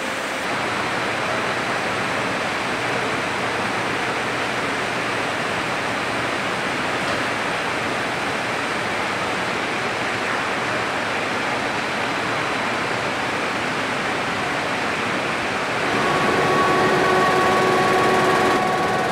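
Newspaper printing-plant machinery running: a steady, even rush of noise from the conveyors and presses. About 16 seconds in it grows louder and a steady multi-tone machine whine joins it.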